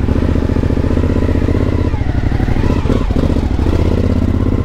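Suzuki V-Strom motorcycle engine running at low revs as the loaded bike pulls away and rides slowly along a wet street, a steady low pulsing throb.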